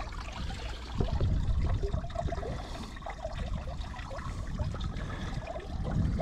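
Running water trickling and pouring steadily, with irregular low rumbling that is strongest about one to two seconds in and again near the end.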